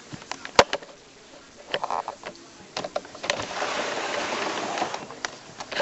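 Rain falling, heard as a hiss that swells for about a second and a half past the middle, with scattered clicks and knocks and one sharp click about half a second in.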